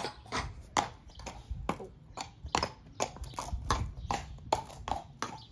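A horse's hooves on paving stones, an irregular clip-clop of steps several times a second, over a low rumble.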